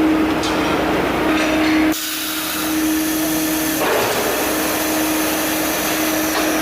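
CNC pipe bending machine running: a steady hum under a noisy hiss, which shifts abruptly about two seconds in and again near four seconds.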